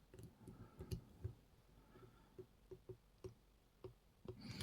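Faint small clicks from a pin-tumbler challenge lock being locked back up, scattered through, with a short even run of about five clicks a third of a second apart in the middle.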